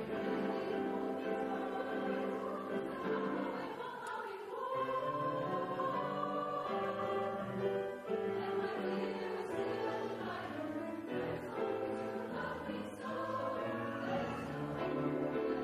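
High school choir singing a holiday piece in sustained held chords.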